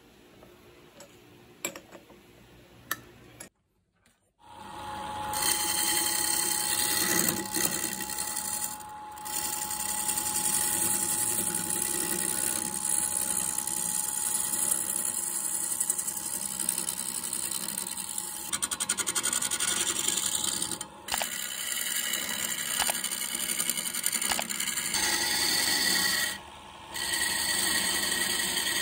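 A few light clicks as a lathe's four-jaw chuck is tightened with its key, then a hand-held chisel cutting a spinning block of wood on the lathe: a steady scraping hiss of the tool peeling shavings off the wood. The cut breaks off briefly twice, near the end, as the tool leaves the wood.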